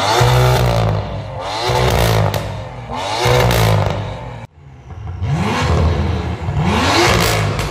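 BMW M2 F87's turbocharged inline-six revved through an Fi Exhaust full valved exhaust system: repeated quick throttle blips, each rising and falling in pitch, about one a second. The sound cuts out abruptly about halfway, then the revving picks up again.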